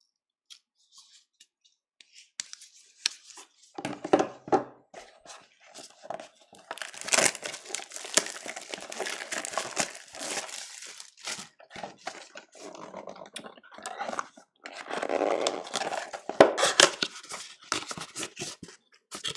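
Shrink-wrap and cardboard of a Panini Select basketball card blaster box crinkling and tearing as gloved hands open it, in irregular scratchy bouts starting about four seconds in.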